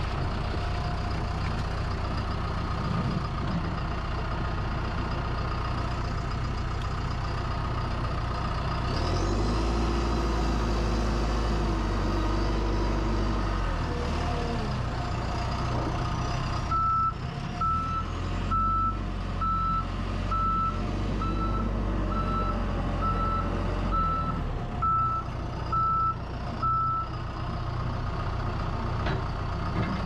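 John Deere 310L EP loader backhoe's 69 hp Tier 4 diesel running as the machine is driven about. It revs up under load about 9 seconds in and settles back near 14 seconds. From about 17 seconds its reverse alarm beeps steadily, a little faster than once a second, for about ten seconds while the machine backs up.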